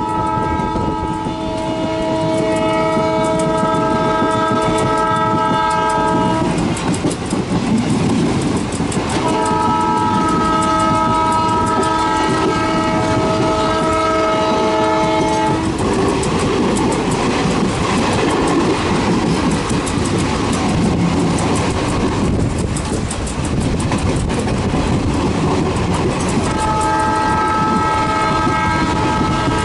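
WDM2 ALCO diesel locomotive's multi-tone horn sounding in long blasts of about six seconds each: one already sounding at the start, a second a few seconds later, and a third beginning near the end. Between the blasts, the steady running noise of the train on the rails.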